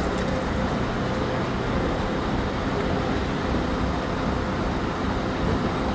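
Heavy machinery engine running steadily: a continuous low rumble with a wash of noise over it.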